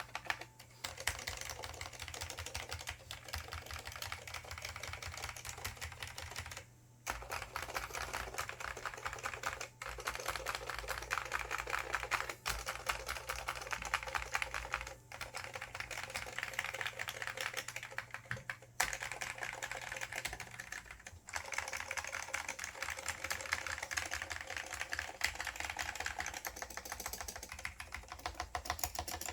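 Fast, continuous typing on an IBM 5556-003 keyboard with Alps SKCL Green switches and ABS doubleshot keycaps: rapid key clicks with a few brief pauses.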